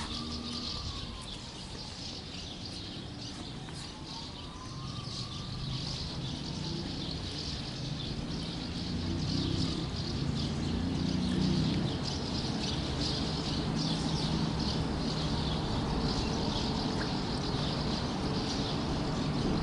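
Many small birds chirping continuously over a low rumble, which grows a little louder about eight seconds in.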